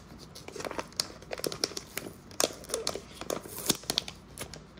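Shiny anti-static plastic bag crinkling and crackling in the hands as its corner is pulled and crumpled around an Ethernet switch. It is a quick, uneven run of sharp crackles.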